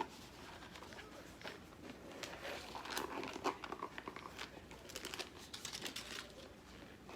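A stiff new insulated sleeve being pulled and worked onto a plastic water jug: irregular rubbing, crinkling and small clicks of the sleeve against the jug, the sleeve still stiff and hard to fit.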